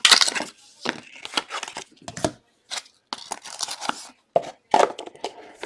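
Trading card packaging being torn open and handled: a string of irregular sharp rips and crinkles.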